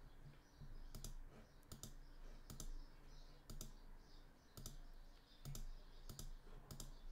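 Faint clicking of a computer mouse, a click or a quick pair of clicks about once a second, as steps are worked through in a computer simulator.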